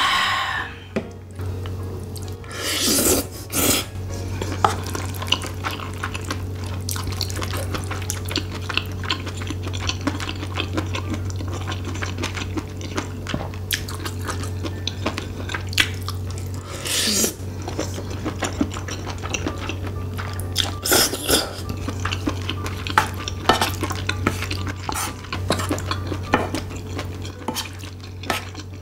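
Wooden spoon scraping and stirring rice in a shallow pan, with many small clicks against the pan and chewing between spoonfuls. A few louder noisy bursts stand out, about 3 seconds in and twice past the middle.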